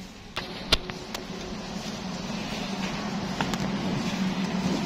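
Wire shopping cart rolling on a concrete floor with a steady rumble, its frame giving a few sharp clicks and rattles in the first second or so, over the hum of the warehouse store.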